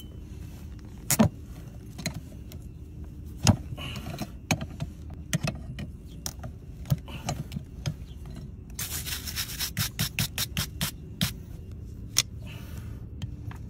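Farrier's steel pincers and pullers working a horseshoe and its nails out of a hoof: scattered sharp metal clicks and scrapes, with a quick run of ticks about nine seconds in.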